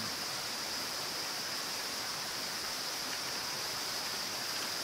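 Small forest stream flowing: a steady, even rush of water.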